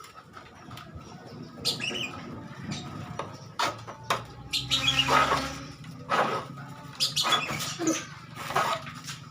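Hand file rasping across the teeth of a handsaw in short, irregular strokes, with one longer stroke about five seconds in, sharpening the dulled teeth.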